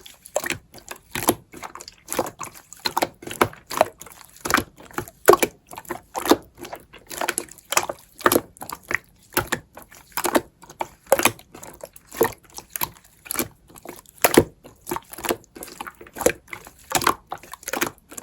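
Slime being squeezed and worked by hand, making wet squishing clicks and pops about two or three a second.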